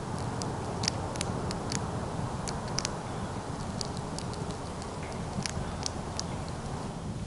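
Chipmunk gnawing a dry cracker: irregular sharp crunches, about two a second, over a steady rush of wind.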